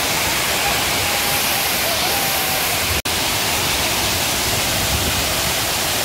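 Steady rush of a waterfall, cutting out for an instant about halfway through.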